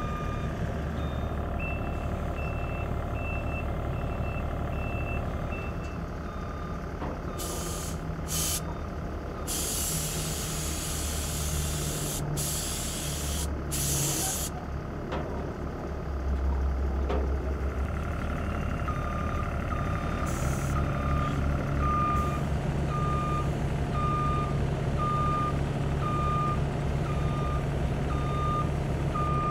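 Vehicle back-up alarm beeping about one and a half times a second over a running engine. The beeps are higher-pitched in the first few seconds and lower in the second half. Several sharp bursts of hissing compressed air come in the middle, from a paint spray gun.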